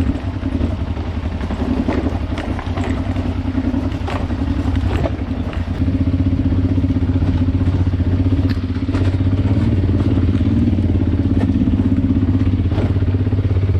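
Honda Transalp 600's V-twin engine running at low speed over rough off-road ground, with scattered knocks and clatter over the first few seconds. From about six seconds in the engine runs louder and steadier.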